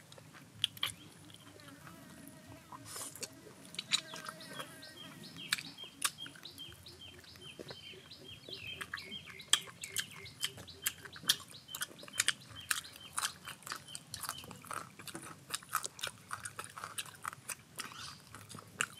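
Chewing and lip-smacking of people eating boiled beef tail by hand, heard as many short sharp clicks. A faint rapidly pulsing call sits behind them from about six to about sixteen seconds in.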